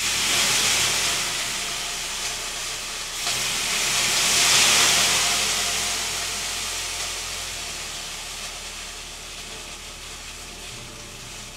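Water thrown onto the hot stones of a sauna heater, hissing into steam: it starts suddenly, surges again about three seconds in, then slowly dies away.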